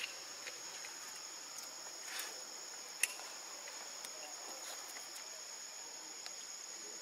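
Steady high-pitched insect chorus, a constant two-tone drone, with a single sharp click about three seconds in.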